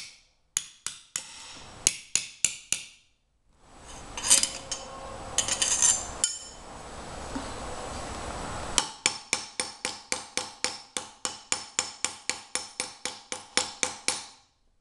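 Small ball peen hammer striking a 14-gauge steel plate over a steel form, rapid blows about three or four a second with a metallic ring, as the plate is curved into a headpiece. About three seconds in the hammering stops for a few seconds of rustling handling noise, then it starts again at the same steady pace.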